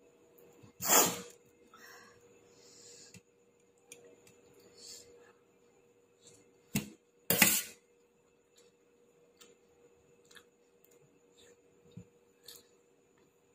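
Eating at a meal: scattered small clicks and knocks of a plate, with two louder short noisy sounds about a second in and a little past seven seconds.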